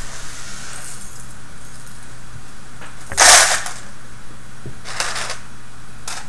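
Small plastic robot-kit parts being handled, clattering in short bursts: a loud rattle about three seconds in and a shorter one about two seconds later, over a steady low hum.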